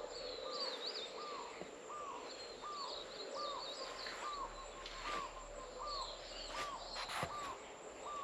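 Birds calling: one bird repeats a short rising-and-falling note evenly, about one and a half times a second, while another adds clusters of high chirps now and then.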